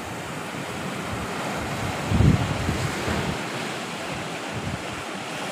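Sea surf washing and breaking against the foot of a rock cliff, with wind on the microphone; a louder low rush comes about two seconds in.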